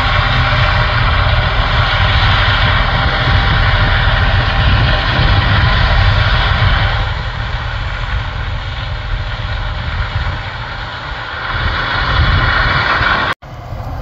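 John Deere S680 combine and the tractor pulling the grain cart beside it, running steadily while harvesting corn, heard across the field as a steady low rumble with a broad whir over it. The sound eases a little about halfway through, and cuts out for an instant near the end.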